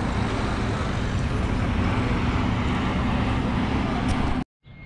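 Street traffic noise: motor vehicles, including a bus, running along the road in a steady rumble that cuts off abruptly near the end.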